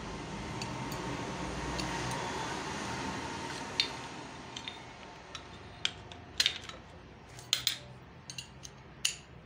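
Scattered metal clicks and clinks as a clutch-holding tool is fitted onto the clutch assembly of a Hero HF Deluxe engine, to hold it while the centre nut is tightened. Most of the clicks, and the sharpest, come in the second half.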